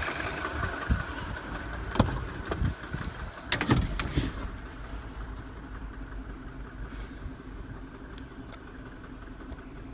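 2007 Mini Cooper's N12 1.6-litre four-cylinder petrol engine idling with a ticking at idle that a new belt tensioner has not cured. Several sharp knocks and clicks come in the first half, after which the engine sound drops in level.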